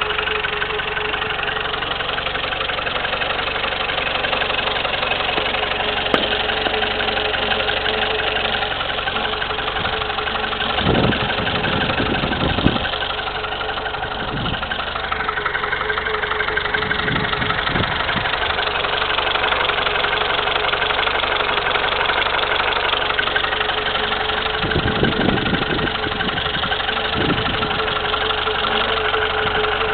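Peugeot 205's 1.1-litre TU four-cylinder petrol engine idling steadily, with a constant whine running through it. A few dull low thuds come about eleven seconds in and again around twenty-five seconds.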